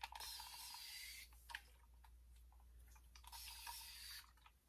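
Near silence: a faint rustle of hands working through hair, with a soft click about a second and a half in.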